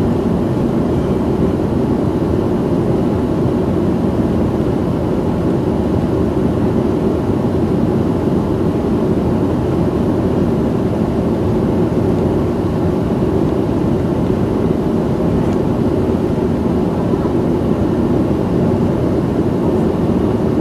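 Boeing 737-800's CFM56 jet engines and airflow heard from inside the cabin as a steady, unbroken low rumble during the climb after takeoff.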